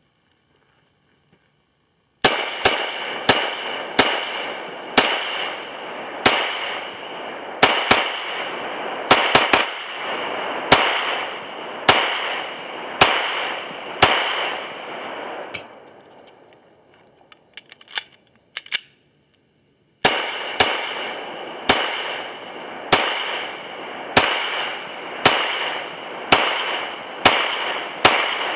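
Ruger P95 9mm semi-automatic pistol fired in a long string of shots, about one to two a second, each crack trailing off in echo. Partway through the firing stops for a few seconds, with a few light clicks, then steady shooting resumes.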